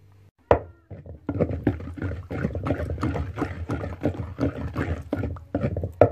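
Pestle pounding a wet red mash in a deep wooden mortar: one sharp knock about half a second in, then rapid repeated wet thuds about four to five a second.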